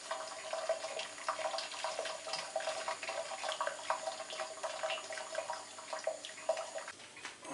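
Boiling water poured from a kettle through a plastic funnel into a new oak barrel, splashing and gurgling steadily as it runs in; the pour tails off near the end. This is the hot-water soak of a new barrel, done to swell the oak staves so that it won't leak.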